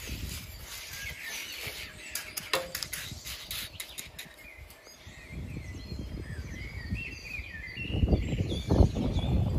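Dry wheat grains rustling and scraping as wooden spatulas stir them through a shallow metal roasting pan, with a few sharp clicks about two seconds in and birds chirping in the background. Near the end, louder crackling rustles take over.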